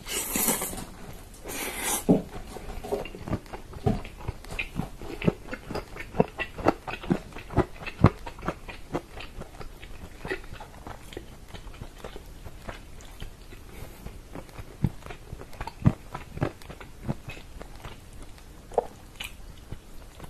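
Close-miked chewing and biting of pressure-cooked bone-in chicken in tomato sauce. There are two short hissing slurps near the start as meat is pulled from the bone with the lips, then a steady run of wet mouth clicks, about two a second.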